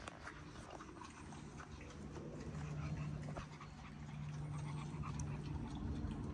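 Exotic bully dog snuffling and breathing as it sniffs along the ground, over a steady low hum.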